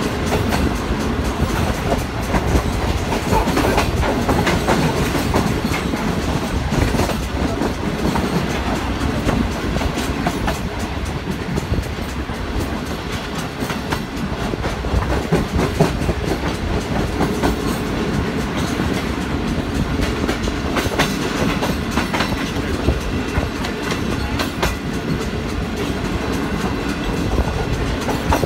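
Pakistan Railways Shalimar Express passenger coach running along the track: a steady rumble with the clickety-clack of its wheels over the rail joints, heard from an open coach window.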